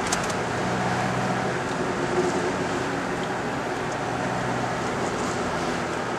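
Car driving on a city street, heard from inside the cabin: a steady engine hum and road noise, with a few short clicks right at the start.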